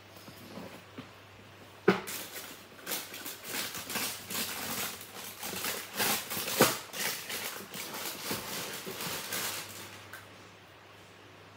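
Tissue paper rustling and crinkling as it is pulled back from a pair of sneakers in a cardboard shoebox, preceded about two seconds in by a sharp knock of the box being handled. The rustling goes on in uneven bursts for about eight seconds, then stops.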